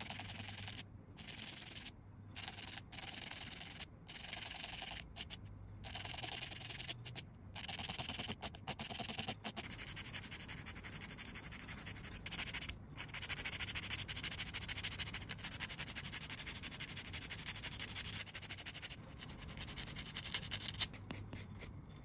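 A nail file rasping back and forth in quick strokes across clear false nail tips, shaping them. There are short breaks in the filing during the first several seconds, then a longer unbroken stretch in the middle.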